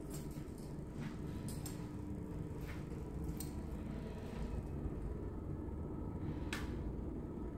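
Steady low rumble of room tone with a few faint, short clicks scattered through it.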